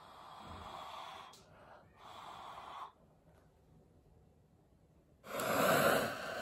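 A person blowing twice in long breaths onto wet acrylic pour paint, pushing it across the surface. About five seconds in, a heat gun switches on with a loud steady rush of air and a faint high whine.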